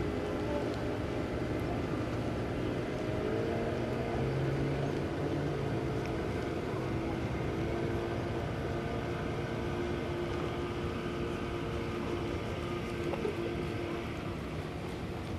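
A boat engine running steadily with an even hum. Its tone shifts slightly about three seconds in.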